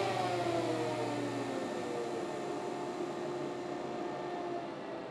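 Shaper switched off and winding down: its whine falls steadily in pitch as the spindle and heavy cutter coast, and a low hum cuts out about a second and a half in.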